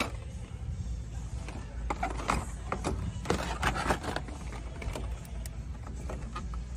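Plastic blister-pack cards of die-cast toy cars clacking and crinkling as they are rummaged through by hand: an irregular run of short clicks and rustles, busiest in the middle, over a steady low background hum.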